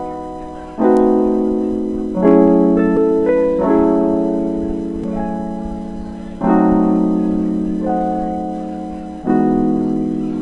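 Piano playing slow chords, each struck and left to ring and fade, every few seconds: the instrumental intro of the hip-hop song before the rap comes in.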